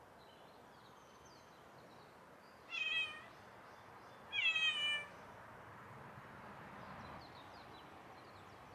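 A domestic cat meows twice, about a second and a half apart: a short meow about three seconds in, then a longer one that falls in pitch.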